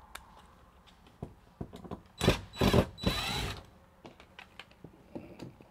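Cordless drill running in three short bursts, one right after another a little after two seconds in, backing out the screws that hold an access panel. Small clicks and handling knocks around them.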